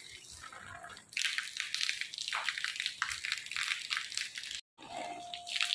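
Heavy rain pattering on an open umbrella and splashing on a wet tiled rooftop, a dense hiss of fine drops that grows louder about a second in and cuts out for a moment near the end.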